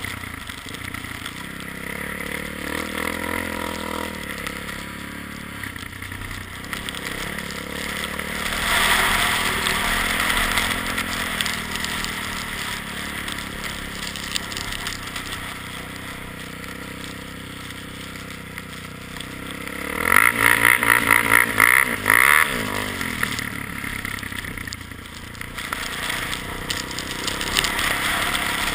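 ATV engine running under changing throttle as it rides through snow, its pitch rising and falling, with a louder stretch of hard revving about twenty seconds in.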